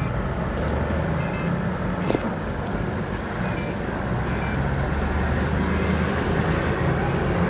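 Steady low mechanical rumble, like passing road traffic, with a few short faint high tones and a couple of brief clicks.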